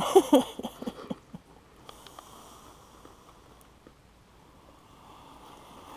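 A man's voice briefly at the start, then a quiet stretch of low hiss with a few faint clicks and knocks.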